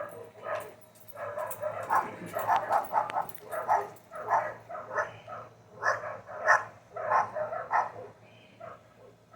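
A dog barking in a quick series of short barks, two or three a second, easing off near the end.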